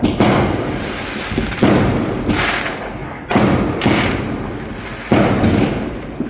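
Fireworks going off: four loud bangs, one about every one and a half to two seconds, each followed by a fading rumble, with smaller pops in between.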